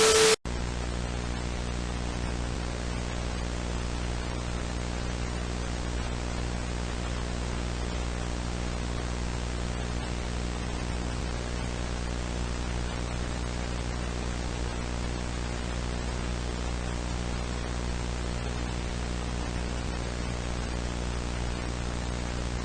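Steady static hiss with a low electrical hum underneath, beginning just after a brief loud tone burst that cuts off sharply about half a second in.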